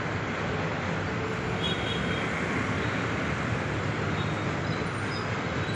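Steady background traffic noise: an even low rumble with hiss and no distinct events.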